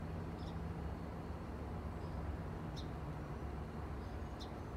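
Short, faint, high chirps of a small bird three to five times over a steady low rumble.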